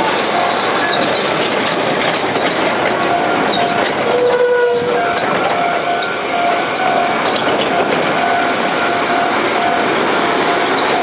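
ND552-class diesel locomotives passing over a level crossing, a loud, steady run of engine and wheel noise on the rails. A level-crossing warning bell rings through it as a repeating high tone.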